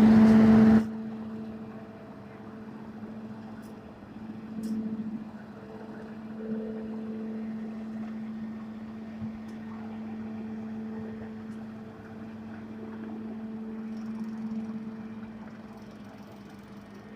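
A short, loud burst of noise in the first second, then a steady mechanical hum with a low drone and a higher tone above it, like an engine idling.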